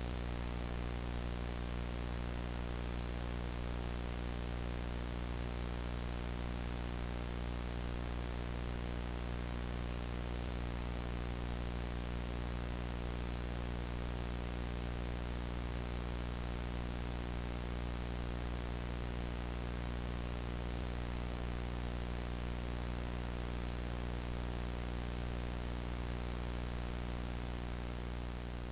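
Analog VHS tape static: a steady, even hiss with a low buzzing hum underneath, unchanging throughout.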